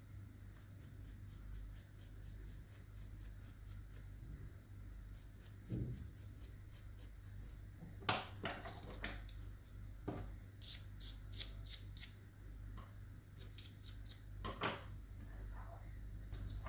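Hand work on plastic parts: runs of quick light scratching strokes, about five a second, with a few louder knocks in the second half, over a steady low hum.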